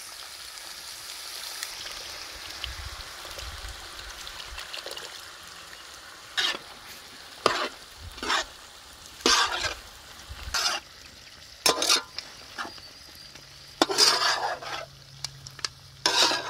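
Boiled mutton sizzling as it fries in masala on a tawa. About six seconds in, a spatula starts stirring and scraping it across the griddle in short, irregular strokes.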